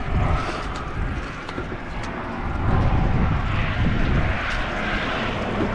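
Steady rumble of vehicle traffic on a road bridge, swelling about three seconds in as a vehicle passes, with a few light ticks.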